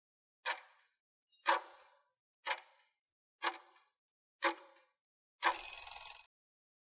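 Countdown-timer sound effect: five clock ticks, one a second, then a short alarm sound, under a second long, as the timer runs out.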